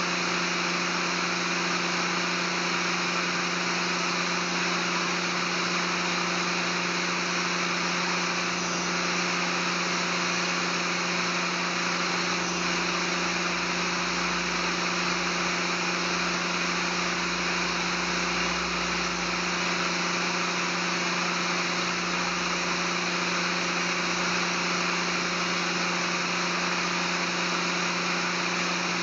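Steady drone of workshop machinery running, an even hum with a rushing noise over it that does not change.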